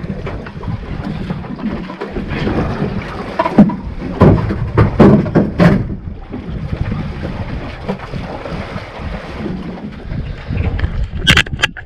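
Wind buffeting the microphone and sea water lapping against a small boat's hull as it drifts. A few knocks sound around the middle, and two sharp clicks come near the end.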